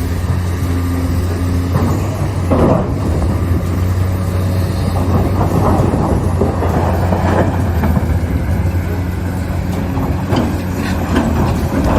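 Caterpillar 390D excavator's diesel engine running steadily, with irregular clattering and scraping of material from about two seconds in.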